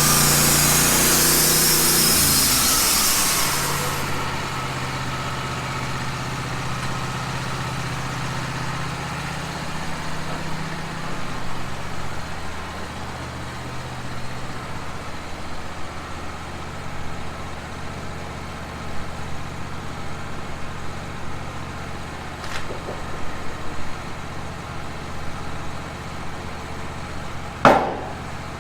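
Wood-Mizer band sawmill finishing a cut: the hiss of the blade stops about four seconds in, and the mill's engine keeps running, its speed shifting a little now and then. A single sharp knock comes near the end.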